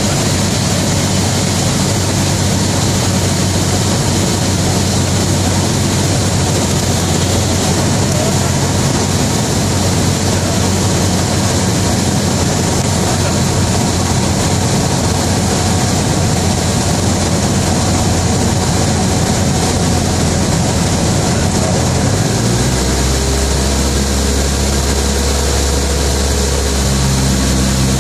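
Cessna 172's piston engine and propeller running steadily, heard from inside the cockpit with a rush of airflow noise on final approach. About 22 seconds in, the engine note drops and deepens as power comes off for landing.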